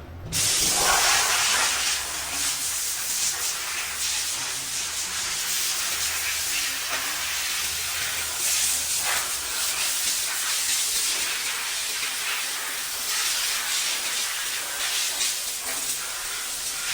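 Steady, high hiss of a pressurised jet, starting suddenly just after the start and wavering a little in strength.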